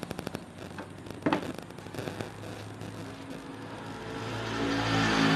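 A single sharp knock about a second in, then an engine hum that grows steadily louder over the last couple of seconds.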